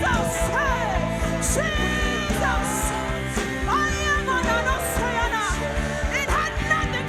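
Live worship band music, with a voice singing sliding, melismatic runs over steady bass and drums.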